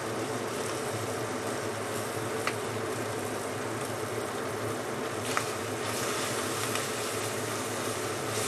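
Minced pork and shrimp paste frying in a hot earthenware clay pot, a steady sizzling hiss, with two faint clicks partway through.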